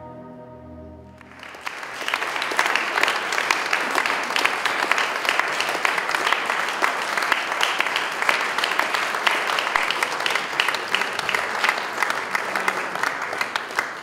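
Music ends about a second in, and an audience breaks into applause, a dense spread of clapping that goes on until near the end.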